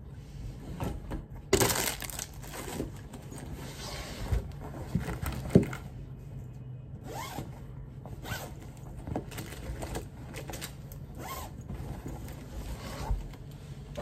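Canvas tote bag being packed and handled: irregular fabric rustling and scraping, with a few light knocks as a water bottle and other items go into it.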